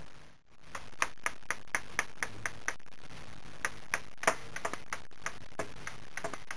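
Kitchen sound effect: a run of light, sharp taps at irregular spacing, about three to four a second, starting about a second in over a steady low hiss.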